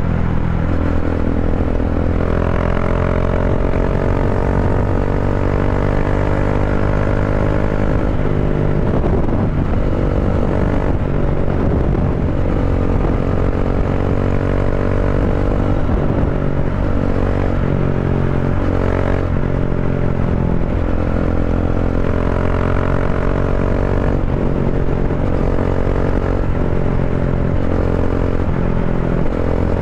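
Bajaj Dominar 400's single-cylinder engine running at highway speed through aftermarket slip-on mufflers, with the catalytic converter replaced by a resonator. The exhaust note is steady, and its pitch dips and rises again several times.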